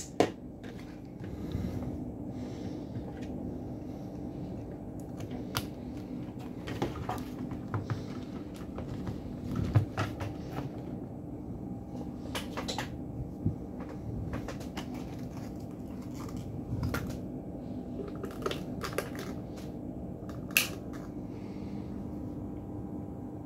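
Steady low electrical hum with scattered light clicks and knocks from circuit-board parts and tools being handled on a workbench.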